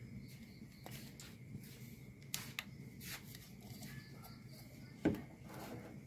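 Quiet night background with a few light clicks and knocks from the camera being handled and set down, the loudest a single thump about five seconds in.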